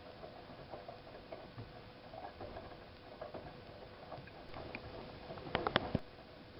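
Siemens iQ WIQ1430 front-loading washing machine tumbling laundry in its drum during the wash phase: irregular light splashing and clicking over a steady faint hum, with a quick cluster of sharper knocks about a second before the end.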